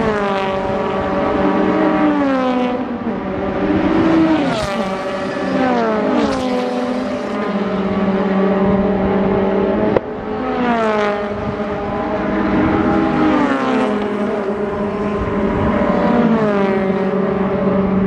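Honda four-cylinder race cars passing one after another at high revs, each engine note dropping in pitch as it goes by, over a steady drone of engines further off. A single sharp click about ten seconds in.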